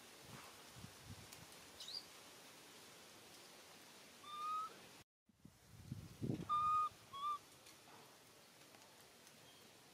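A baby macaque giving short, clear whistle-like coo calls: one rising call about four seconds in, then a longer steady call and a quick shorter one a little later. A few soft thumps and rustles come in just before the later calls.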